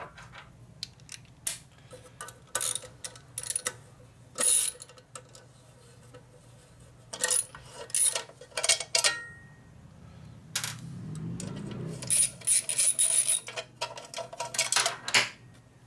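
Wrench and metal parts clinking and tapping while bolts are fitted and tightened: a run of sharp metallic clicks and taps that comes in scattered strokes, then clusters more densely in the last few seconds.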